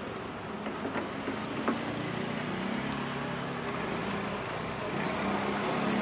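A steady low mechanical hum, with a few faint clicks in the first two seconds.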